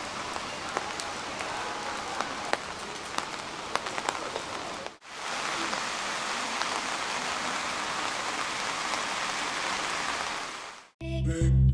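Heavy rain in a downpour: a steady hiss with sharp drops pattering close by for the first five seconds or so. After an abrupt cut, an even rain hiss follows. Music comes in near the end.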